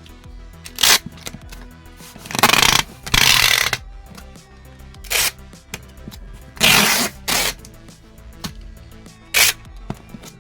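Packing materials being handled: about eight short, loud rasping bursts, some paired, such as tape pulled off a roll or wrap being crinkled, over quieter background music.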